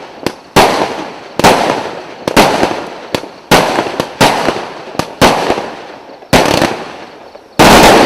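A 0.8-inch consumer fireworks cake firing shot after shot: a sharp report roughly every half-second to second, each followed by a fading burst. Near the end comes a louder, longer blast.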